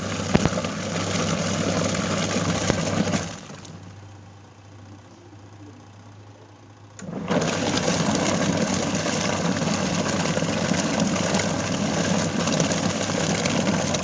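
Washing machine running with a loud, harsh rattling grind over a steady low hum; the grinding stops for about four seconds a few seconds in, leaving only the hum, then comes back.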